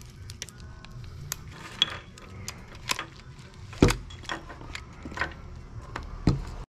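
Small metal parts and hand tools clicking and clinking as a seat belt retractor unit is taken apart, with two louder knocks about four and six seconds in.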